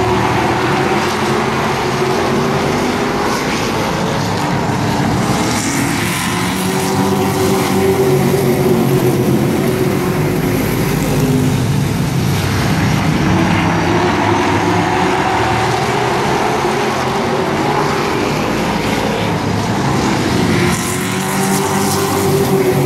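A field of short-track race trucks running laps together at racing speed. The engine note swells and falls again several times as the pack comes past and goes through the turns.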